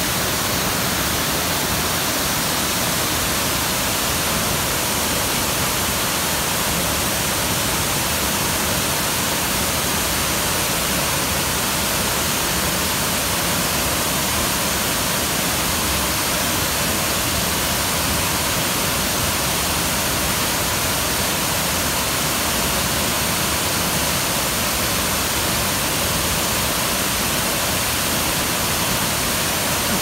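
Tall waterfall crashing into a rocky plunge pool: a steady, even rush of falling water that does not change.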